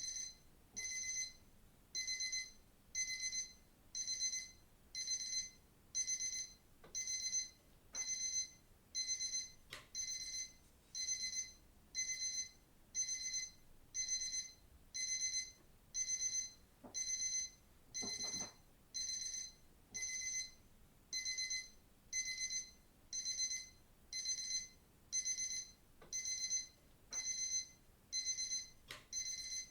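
Digital watch alarm beeping: short, high-pitched bursts repeating steadily about once a second.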